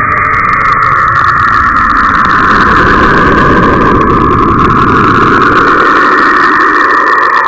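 A 'planet sound' space recording: a loud, steady, noisy drone like a rushing rumble, with a hissing band that drifts slowly up and down in pitch.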